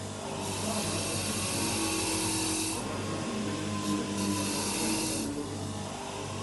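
A workshop tool running in two bursts of hissing, one long and one short, over a steady low hum.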